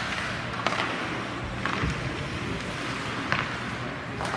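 Ice hockey game sounds: steady rink noise with skates scraping the ice, and about four sharp clacks of sticks or puck spaced a second or so apart.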